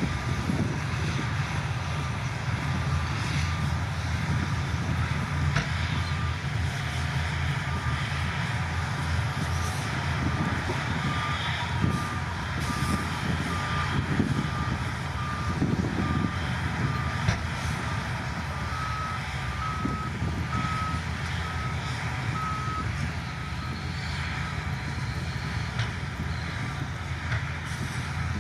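Heavy diesel construction machinery running steadily, with a reversing alarm beeping at an even pace, about once a second. In the last third a second run of beeps, slightly higher and louder, takes over.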